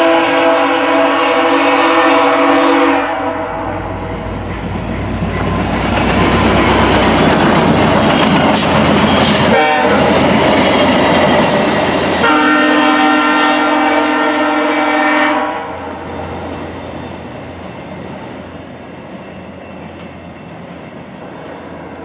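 VIA Rail GMD F40PH-2D passenger locomotive sounding its multi-chime air horn in two long blasts of about three seconds each, one at the start and one about twelve seconds in. Between the blasts the train rushes past at speed with wheels clattering over the rails, and after the second blast it fades away.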